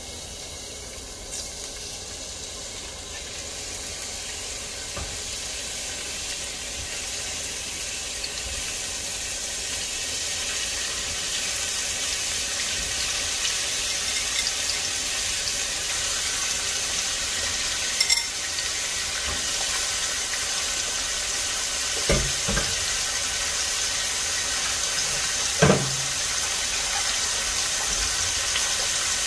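Pork rib pieces sizzling in hot oil in a pot, the sizzle growing slowly louder as more pieces go in. A few knocks, about 18, 22 and 26 seconds in, as pieces are set into the pot.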